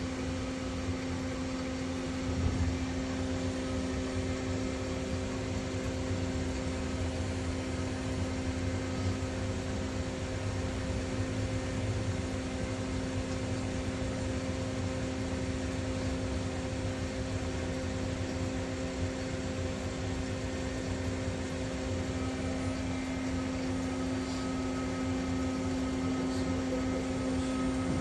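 Steady hum of a CNC Swiss-type lathe standing under power, several constant tones over a low rumble. A faint higher whine joins about three-quarters of the way through.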